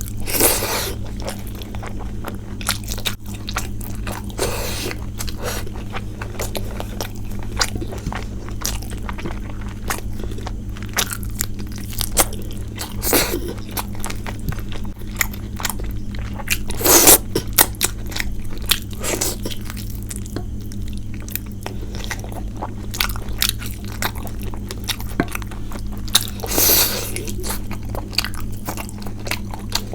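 A person chewing and crunching food close to the microphone, with a run of small clicky mouth and food sounds and about half a dozen louder crunchy bites spread through.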